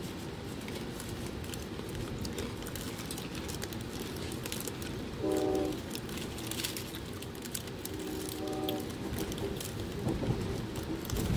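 A moving Amtrak Silver Meteor passenger train heard from inside the coach: a steady rumble with scattered clicks. Two brief pitched sounds come about five and eight seconds in.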